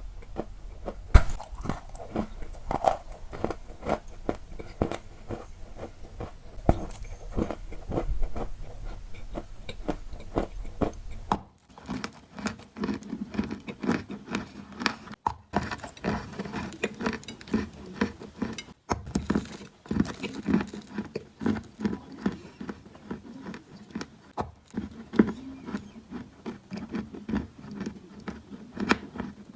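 Close-up crunching of crunchy snack balls: a dense run of crisp bites and chews. About eleven seconds in, a low background hum drops out as it changes to another eating clip.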